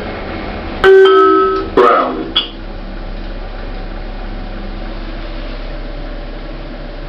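Lift chime: three bell-like electronic notes in quick succession about a second in, the first the longest and loudest, over a steady low hum.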